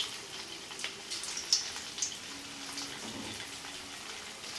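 Batter-coated soya chunks deep-frying in hot oil: a light, steady sizzle with scattered sharp crackles, one louder pop about a second and a half in.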